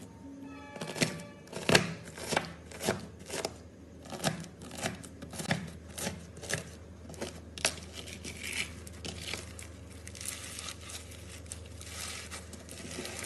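Slime being squeezed and played with by hand, making a run of sharp clicking pops about two a second, then a denser crackling for the last few seconds.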